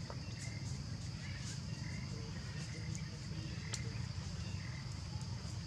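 Steady high-pitched insect chirring over a low, even rumble, with a few faint short chirps and light clicks scattered through.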